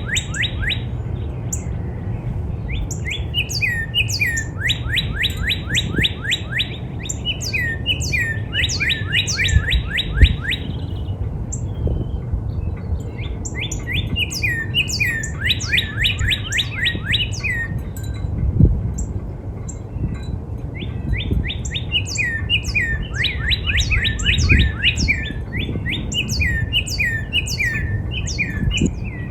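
Northern cardinal singing: phrases of rapid, steeply falling whistled notes alternating with slurred two-part notes, with short pauses between phrases. Under it is a steady low rumble, with a sharp thump about ten seconds in and another a little past halfway.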